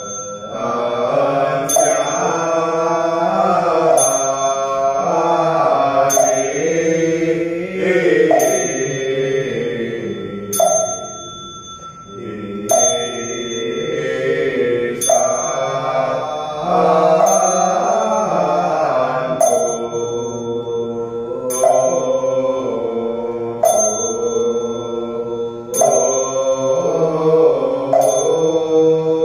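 Buddhist liturgy chanted in unison by male voices, held and gliding notes, with a struck ritual percussion instrument keeping a steady beat about every one to two seconds, each strike leaving a short high ringing tone.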